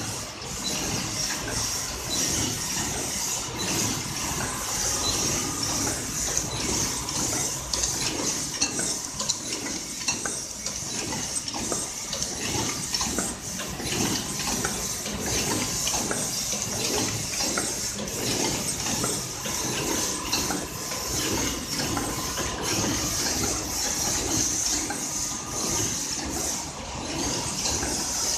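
Paper cup forming machine running: a continuous rhythmic metallic clatter of its feed and forming turret, over a steady high hiss.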